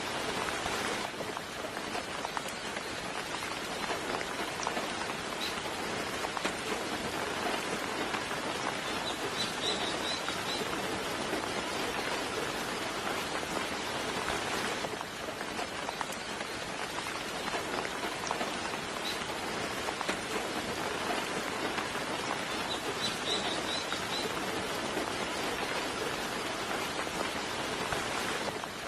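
Steady soft rain falling and pattering. A bird chirps two short clusters of high notes, one about a third of the way in and one about four-fifths of the way in.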